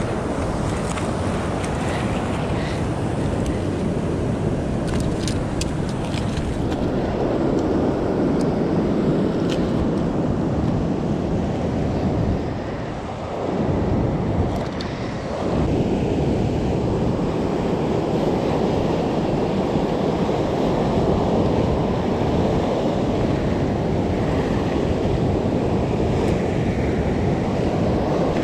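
Surf washing over and around shoreline rocks, a steady rushing with wind buffeting the microphone. The sound eases briefly twice near the middle.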